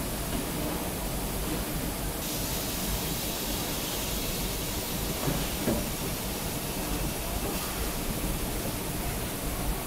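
Metal lathe running, a steady mechanical noise with hiss. About two seconds in, a higher hiss comes in and holds.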